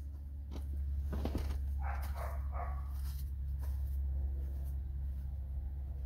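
Carbureted engine idling steadily after a timing chain replacement, a low even drone. About two seconds in, three short, sharp mid-pitched sounds come quickly one after another.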